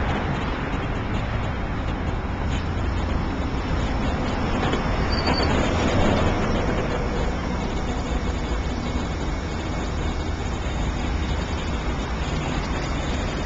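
Steady city street traffic noise, swelling slightly about halfway through.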